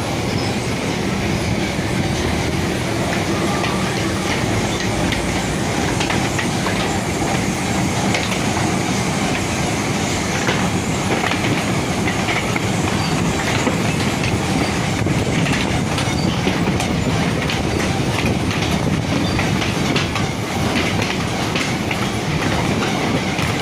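Steady mechanical rumble with a dense, continuous rattling clatter during the unloading of hybrid coconuts.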